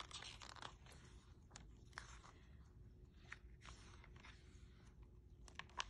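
Faint rustling and light ticks of paper as the pages of a paperback picture book are turned and handled, a few short soft taps scattered through, with a small cluster near the end.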